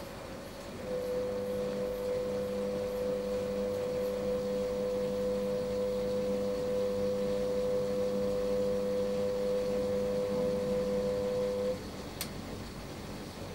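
A steady humming tone on one pitch, starting about a second in and cutting off suddenly some eleven seconds later, followed shortly by a small click.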